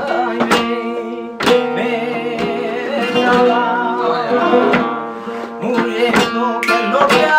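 Flamenco guitar playing seguiriyas, with sharp handclaps (palmas) and footwork strikes marking irregular accents.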